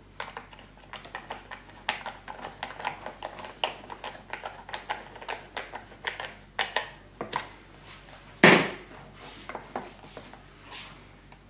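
Hard plastic mower housing parts being handled and fitted together by hand: a quick run of small clicks and knocks, then one louder knock about eight and a half seconds in.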